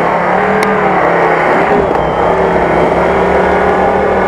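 UAZ-469 off-road truck's engine running loud and close at a steady pitch as the truck drives up a muddy gully.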